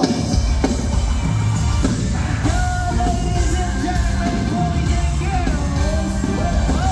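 Live rock-style concert music: a band with heavy drums and guitar plays while a male vocalist sings and shouts into a microphone, holding one long note in the middle, heard through the arena's sound system.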